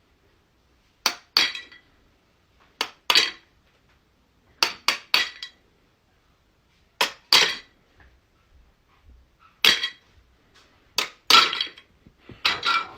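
Sharp clinks of hard objects striking one another, mostly in pairs, a pair every second or two, each with a brief ringing tail.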